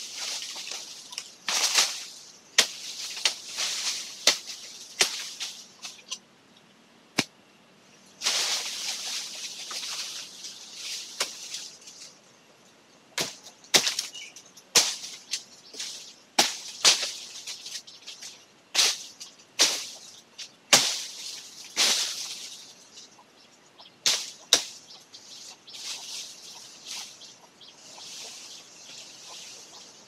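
Leafy tree branches rustling and shaking in bursts, with many sharp snaps and cracks of twigs and branches being broken.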